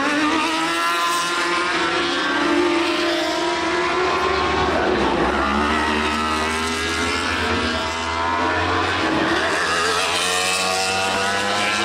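Superbike racing motorcycles at full throttle, several in turn, their engine notes climbing through the gears as they accelerate hard, then dropping in pitch as each one goes by.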